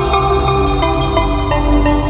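Background music: a slow ambient piece of held, overlapping notes.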